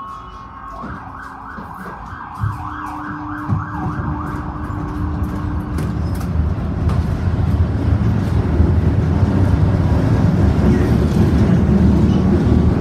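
A siren sweeps rapidly up and down, about two sweeps a second, then stops about halfway through. Meanwhile a Konstal 114Na tram pulls away, and its running noise grows steadily louder as it gathers speed.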